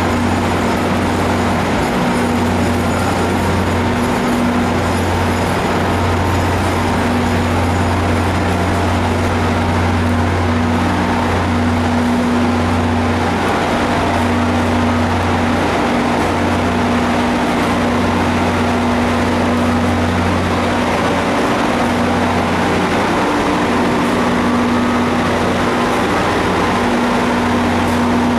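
Steady low drone of stationary commuter trains idling at a platform, a constant deep hum with a higher steady tone that fades in and out.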